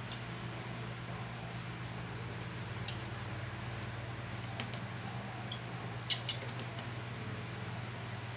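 Small tools and phone parts clicking and tapping during hand repair work: a few scattered sharp clicks, with a quick cluster about six seconds in, over a steady low hum.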